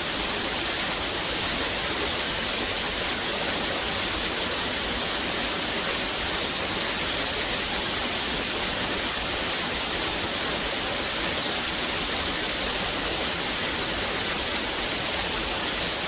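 Steady white noise with an even, unchanging hiss, brightest in the high end.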